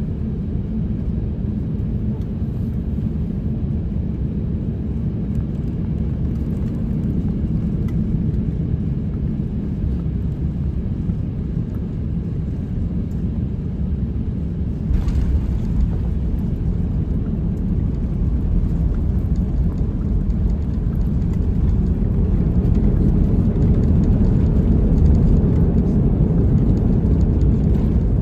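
Airbus A350-900 cabin noise: a steady low rumble. About halfway through there is a brief knock and the deep rumble suddenly jumps up, then keeps getting louder, as at the main wheels touching down and the rollout on the runway.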